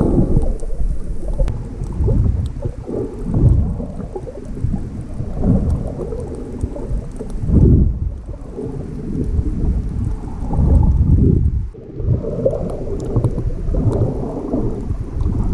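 Water churning and rushing around an underwater camera, heard muffled and low through its housing, swelling and easing every second or two.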